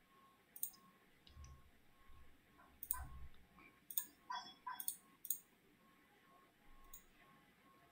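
Faint, irregular clicking: about half a dozen sharp clicks spread over several seconds, with a few dull low thumps between them.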